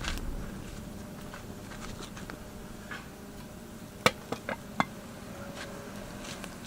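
Metal cookware clinking as it is handled: a quick run of four sharp knocks about four seconds in, with scattered small clicks over a low steady background.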